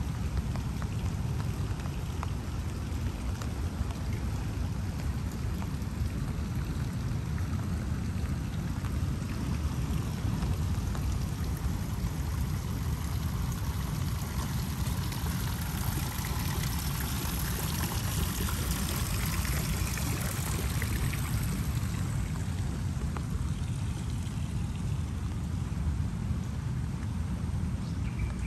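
Steady rain, an even hiss over a deep rumble; the hiss swells louder for several seconds around the middle.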